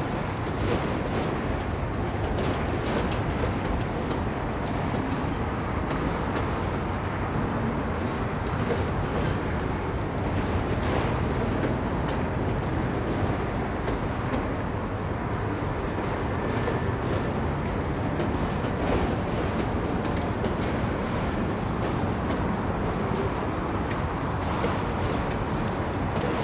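Freight train's autorack and tank cars rolling slowly past: a steady rumble of steel wheels on the rails, with scattered faint clicks.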